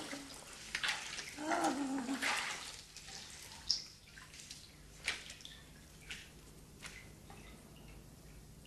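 Water splashing and dripping around a person in a pool, with a short voice-like sound in the first couple of seconds, then scattered drips and small splashes, one sharper splash near the middle.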